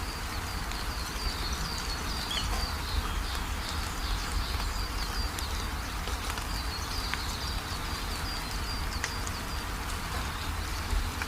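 Rain falling steadily, with rapid high chirping repeating over it and a few sharp drip clicks.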